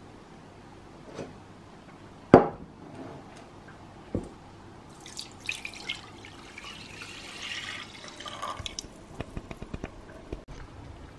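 A sharp knock, then a smaller one, as a wooden bowl is handled. Grape juice is then poured from the bowl into a stainless steel saucepan, splashing for about three seconds, and ends in a scatter of small drips.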